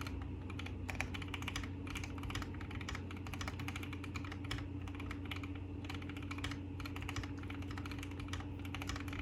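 Keychron Q1 mechanical keyboard with Gateron Black Ink V2 linear switches being typed on continuously, a quick, uneven run of keystrokes several per second, over a steady low hum.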